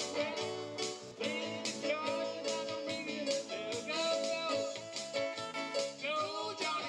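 Two electric guitars played live through amplifiers, a small band performing with a steady beat.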